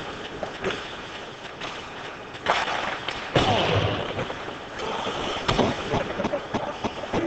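Ice hockey play close to the rink glass: scattered clacks and knocks of sticks and puck over a noisy rink background, with a loud heavy thud a little over three seconds in and a sharp knock about five and a half seconds in.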